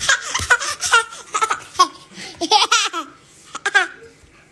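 Someone laughing hard in quick repeated bursts, dying down about three seconds in.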